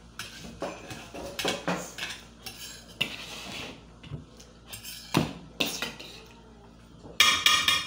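Forks and spoons clinking and scraping on plates of noodles while people eat, in scattered irregular clicks. Near the end comes a brief, loud, high-pitched squeal.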